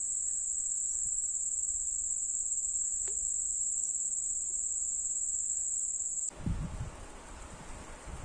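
Steady high-pitched chirring of insects such as crickets, which cuts off abruptly about six seconds in. Wind buffeting the microphone follows.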